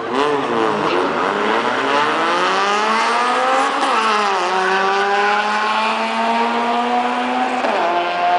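Infiniti G35x and Honda Civic drag racing: engines revving hard off the line and accelerating down the strip, the pitch climbing through each gear with upshifts at about four seconds and again near the end.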